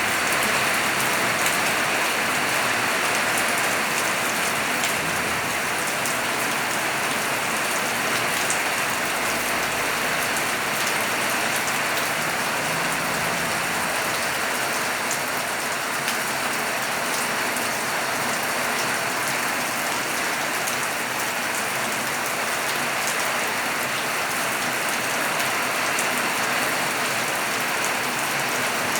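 Steady heavy rain falling on surfaces, a dense even patter with scattered sharper drop ticks.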